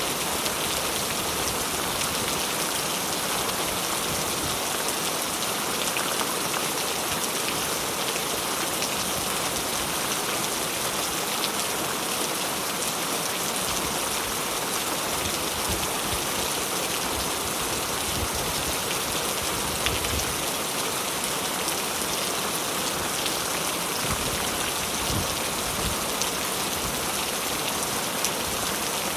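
Steady rain falling, with many separate drops ticking sharply against the even hiss.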